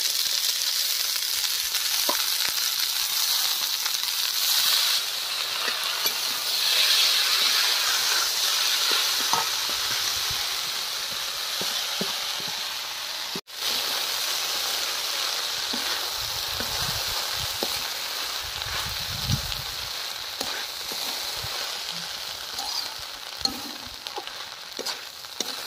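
Spiced, turmeric-coloured basmati-style rice frying in hot ghee in a metal kadai, a steady sizzle with the scrape and clicks of a metal spatula stirring it. This is the rice being lightly fried before the water goes in. The sound drops out for an instant about halfway through.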